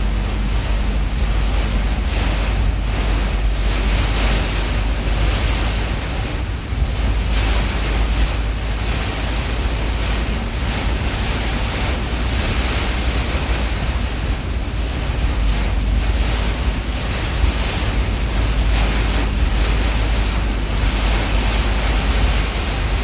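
Heavy rain falling steadily, with wind rumbling on the microphone.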